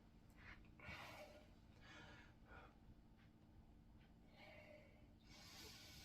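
A man's faint breathing while he holds a stomach vacuum: a few short breaths, then a longer breath starting about four and a half seconds in.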